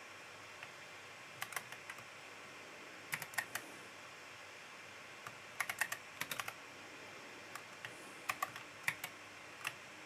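Computer keyboard being typed on: quiet keystroke clicks in short, irregular clusters of a few keys each, with pauses between them.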